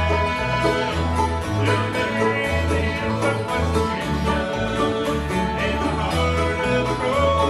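Bluegrass band playing live on acoustic guitars and mandolin, with a steady low bass line moving note to note underneath.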